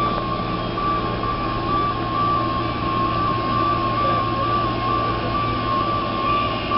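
M-A-N articulated electric trolleybus creeping forward under power: a steady high-pitched whine over a low, even hum.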